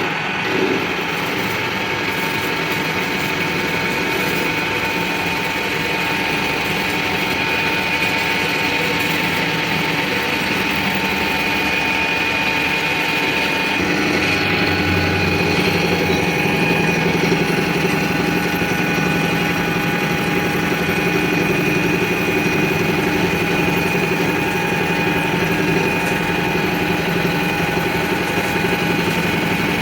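A machine motor running steadily, a continuous hum with constant high whining tones.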